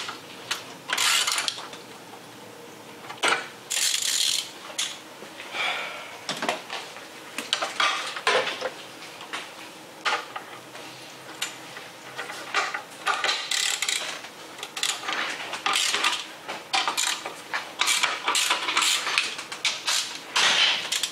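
Hand ratchet clicking in short, irregular runs, with metal tools clinking, as bolts are loosened on an engine.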